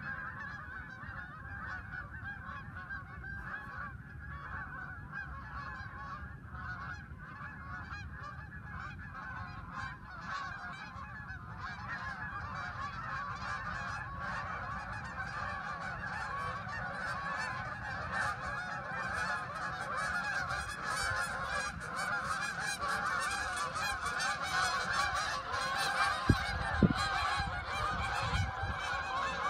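A flock of geese in flight honking continuously, many overlapping calls, growing louder from about twelve seconds in. A brief low thump near the end.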